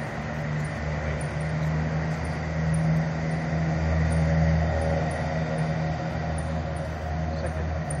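Steady low rumble of a motor vehicle engine running, growing louder around the middle and easing off toward the end.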